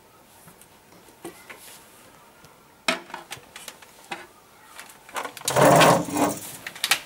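Small clicks and knocks of a pupil handling his belt, then a loud scrape a little over five seconds in as a school chair is pushed back over the floor when he stands up.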